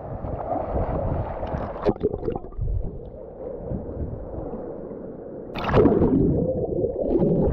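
Sea water sloshing and gurgling against a camera held at the surface, with a sudden splash about five and a half seconds in as the camera goes under, then muffled underwater bubbling.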